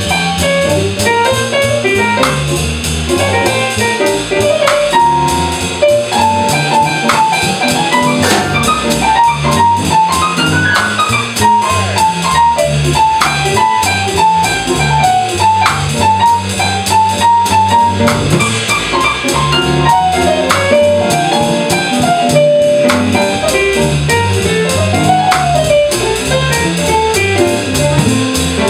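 Small jazz combo playing in swing time: upright bass walking, drum kit keeping time on the cymbals, and a Roland electric keyboard comping and carrying a melody line on top.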